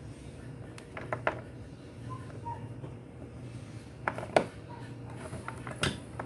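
A bolt and washer being fitted by hand into a scooter's floorboard through a rubber mat: a few sharp clicks and taps, the loudest about four seconds in, over a low steady hum.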